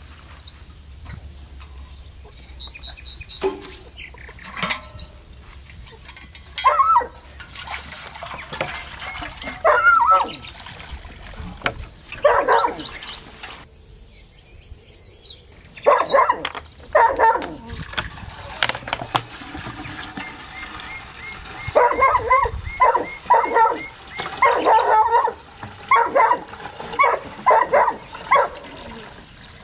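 A dog barking in short, repeated barks, scattered at first and then coming in a fast run near the end, over a steady high insect trill.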